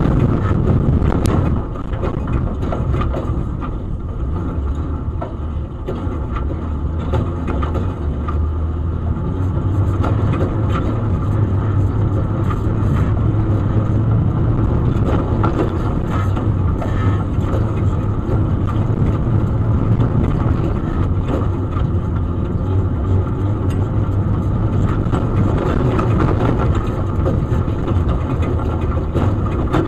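Off-road race vehicle's engine running steadily under way, heard from inside the cab, with frequent rattles and knocks from the vehicle crossing rough desert trail.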